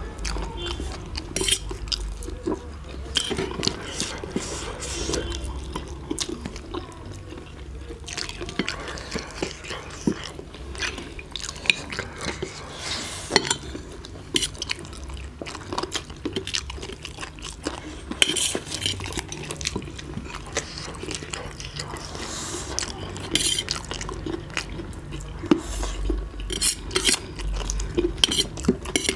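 Eating at a table: noodles slurped and chewed, with forks and spoons clicking and scraping on plates.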